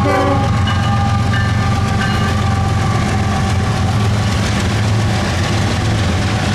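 Several Norfolk Southern diesel freight locomotives passing close by, their engines running with a deep steady drone and the rumble of the train on the rails. A few higher steady tones fade out about four seconds in.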